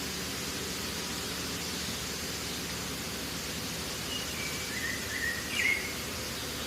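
Steady hiss of background noise, with a few short high chirps about four to six seconds in.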